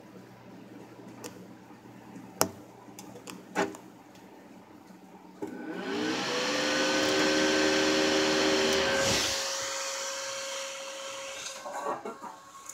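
A few sharp clicks, then an old AMD CPU cooler fan wired straight to a PC's molex power connector starts up about five seconds in, its whine rising quickly and levelling off under a loud rush of air. About nine seconds in the rush of air eases while the whine carries on.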